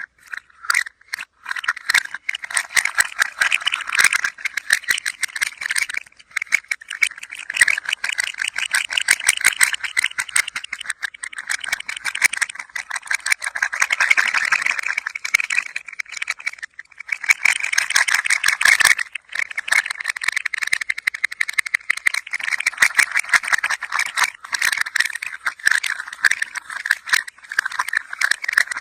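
A toy rattling as it is moved by hand: a dense, rapid clatter of clicks that swells and eases, with a few short pauses.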